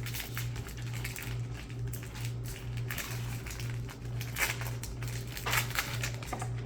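Plastic wrapper of a Topps Series 2 baseball card pack being torn open and crinkled by hand: irregular crackling throughout.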